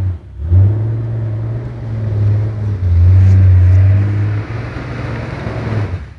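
Engine of a forestry machine working under load: a steady low-pitched drone that drops away for a moment just after the start, picks up again, and eases off near the end.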